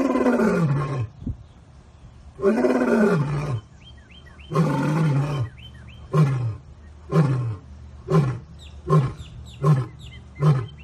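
Male lion roaring: three long, deep roars that fall in pitch, then a run of short grunting calls about one a second, each shorter than the last.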